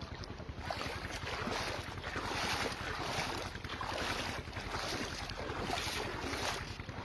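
Shallow river water splashing in even surges, about one every three quarters of a second, as someone wades across on foot, with wind rumbling on the phone's microphone.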